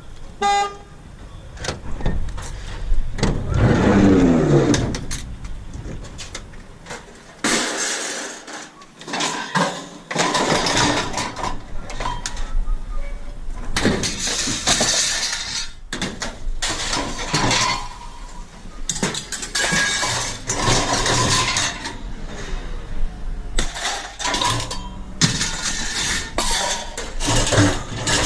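Scrap metal being handled and thrown down: a long run of irregular metal clanks and clatters, some ringing. About four seconds in there is a scrape that drops in pitch.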